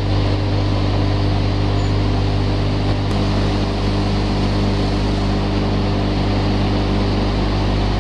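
Powder feed production line machinery running: a loud, steady mechanical drone with a strong low hum, and another steady tone joining about three seconds in.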